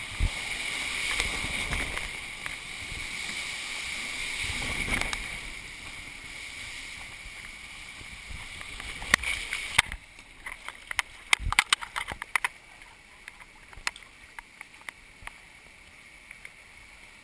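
Water rushing under an inner tube as it slides down a water slide; the steady rush drops off about ten seconds in, giving way to a quieter run-out in shallow water with scattered sharp splashes and drips.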